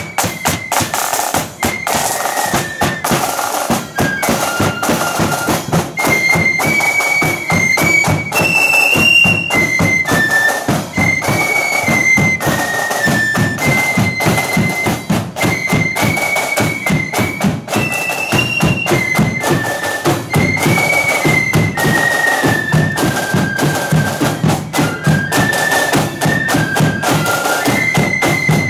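Marching flute band playing a march tune: the flutes carry one melody line over side drums and a bass drum beating a steady marching rhythm.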